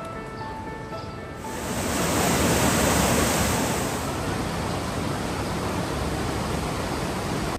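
Background music for about the first second and a half, then a steady, loud rush of flowing river water that swells and holds.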